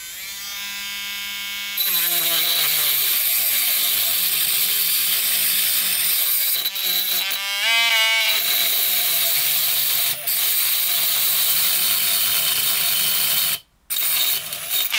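WL-800 micro grinder's small motor whining up to speed, then its abrasive cut-off disc grinding into a nail's 3 mm shaft with a loud, harsh rasp, the motor pitch wavering under the load. Near the end it cuts out for a moment and then whines again running free.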